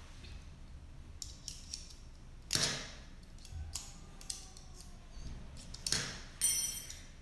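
Metal clicks and snaps of a Leatherman Charge TTI multi-tool as its scissors are opened out of the handle: a few light clicks about a second in, louder snaps at about two and a half and six seconds, and the loudest, ringing snap near the end.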